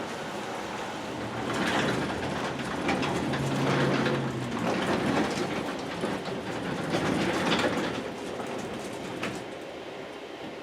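Manually operated 1980s wooden sectional garage door being pulled down, its nylon rollers running along the metal tracks with a smooth rolling rumble and light rattles. The sound builds about a second and a half in and dies away around eight seconds.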